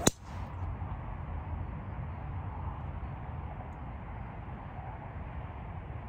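Golf driver striking a ball off the tee: one sharp crack at the very start, followed by steady low background noise.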